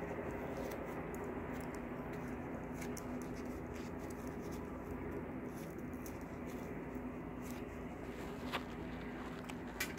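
Quiet steady hum of room tone with faint handling noise and a few light clicks, the clearest two near the end.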